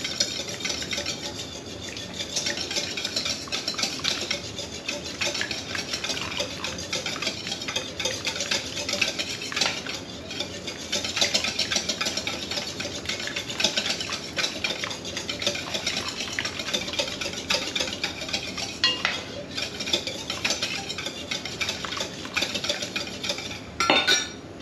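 Wire whisk beating eggs in a stainless steel bowl: a steady, fast clatter of the wires against the metal while warm cream is drizzled in to temper the eggs. Near the end, a louder clank as the ladle goes back into the saucepan.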